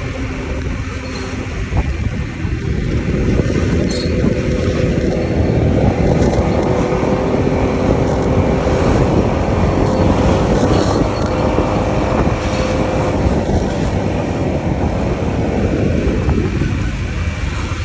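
Honda Click scooter running on the road with engine hum, wind and road noise, the noise swelling about two seconds in and dying back near the end.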